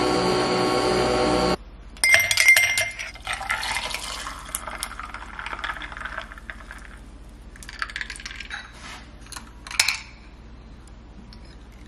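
Nespresso capsule machine brewing with a steady buzzing hum that cuts off after about a second and a half. Then ice cubes clink in a glass as coffee is poured over them, followed by a few light clinks and taps near the end.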